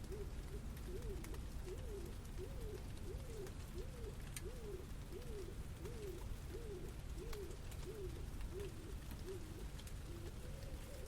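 A low call that rises and falls, repeated about one and a half times a second for some nine seconds, over a steady low city rumble with scattered faint ticks.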